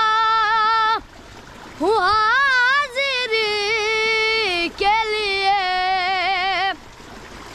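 A boy singing a naat unaccompanied: long held notes with a wavering vibrato, in phrases broken by a short pause about a second in and another near the end.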